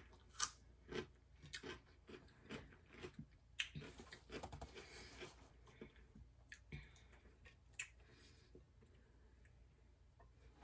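A person chewing food close to the microphone, with faint wet mouth clicks about twice a second at first, growing sparser and fading after about eight seconds.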